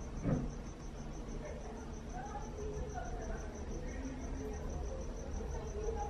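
High-pitched cricket chirping, about five pulses a second, over a low steady rumble. A single knock comes about half a second in.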